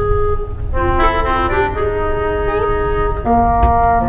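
Background music: a melody of held notes stepping from pitch to pitch, over a steady low rumble.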